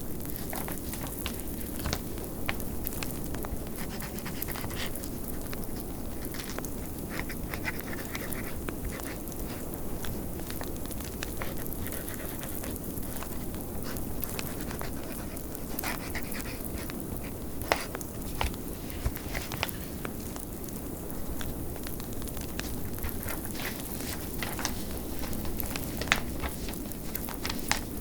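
Wood fire crackling with scattered sharp pops at irregular intervals, over a steady low rumble of blizzard wind.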